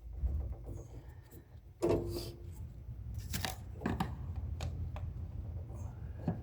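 Hand-tool handling noise: a series of knocks and scrapes, the loudest about two seconds in with a brief ring, as work starts on the snowblower's oil drain.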